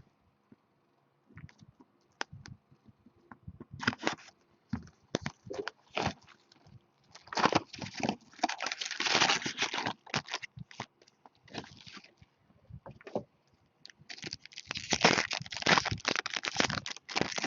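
Crinkling and tearing of plastic wrap and foil pack wrappers as a box of hockey trading cards is opened, in irregular bursts with short pauses.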